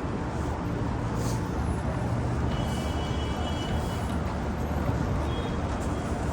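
Steady road traffic noise from passing cars and buses, with a faint high thin tone for about a second and a half around the middle.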